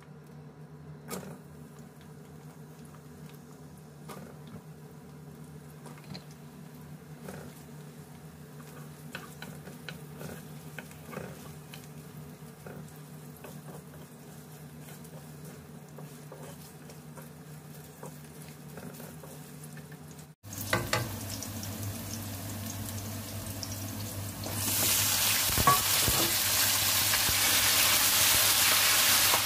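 Garlic and carrot slices frying in oil in a stainless steel wok, with a wooden spatula now and then tapping and scraping against the pan over a low hum. About 24 seconds in, mustard greens go into the hot wok and it breaks into a loud, steady sizzle.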